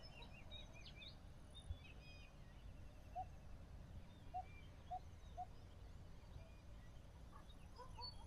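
Faint outdoor ambience of scattered bird chirps, with a few short, lower calls spaced about a second apart in the middle, over a low steady rumble.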